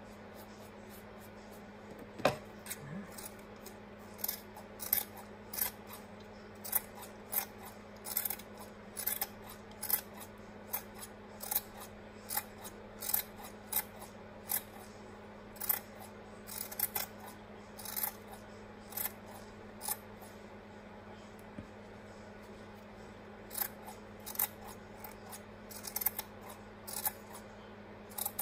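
Scissors snipping repeatedly through yarn as a pom-pom is trimmed into shape, one or two cuts a second. The snipping starts about two seconds in, with a short pause about two-thirds of the way through.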